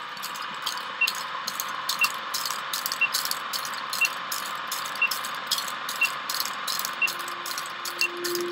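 Vintage film-leader countdown sound effect: a film projector running with a steady clatter and crackling film noise, and a short high beep once a second. A low steady tone comes in about seven seconds in.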